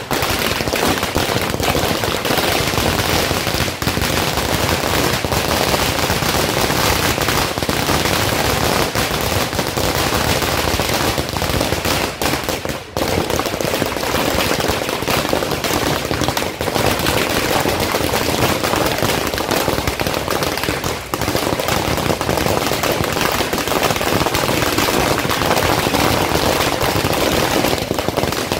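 Firecrackers bursting on the ground in a dense, continuous rattle of sharp bangs, with only brief lulls now and then.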